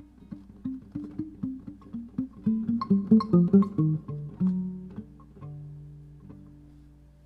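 Solo classical guitar playing a passage of single plucked notes that builds louder to a peak about three to four seconds in, then settles on a low note left ringing and fading.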